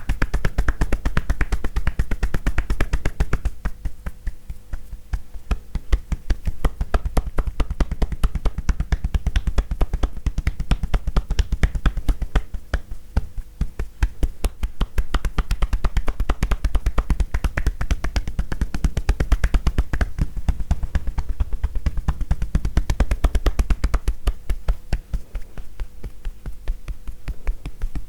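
Rapid, even tapotement massage: a therapist's hands tapping a person's body in a steady rhythm of hollow, popping pats. The tapping eases off and softens a few times.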